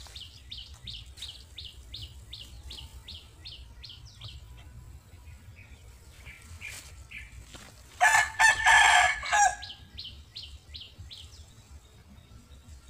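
A rooster crowing once, loud, about eight seconds in and lasting about a second and a half. Under it runs a high chirping call repeated about three times a second, stopping midway and starting again after the crow.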